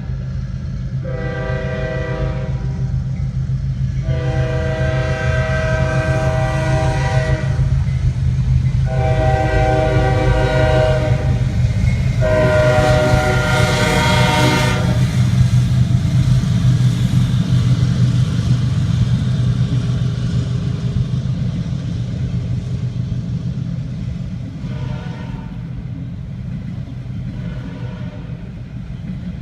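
CSX freight train locomotives' air horn sounding four long blasts, under the steady drone of the diesel locomotives passing. The sound builds to its loudest about halfway through, then fades as the train moves off, with two fainter, shorter horn blasts near the end.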